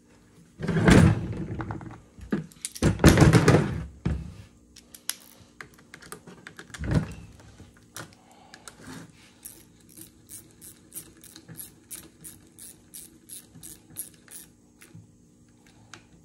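Metal parts and tools being handled on a workbench, with a few loud clattering knocks, then a long run of light, even clicks, about three a second, as a hand tool tightens the small screw on the front of a rebuilt GM starter solenoid.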